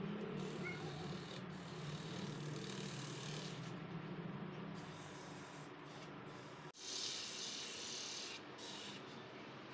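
Rotor shaft of a 3 HP electric motor turned by hand in its freshly fitted bearings, a steady rubbing whir. It breaks off sharply about two-thirds of the way through, leaving a steady hiss.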